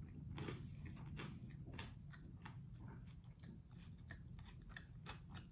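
Close-miked chewing of a mouthful of toasted garlic bread: a run of faint, irregular crisp crunches.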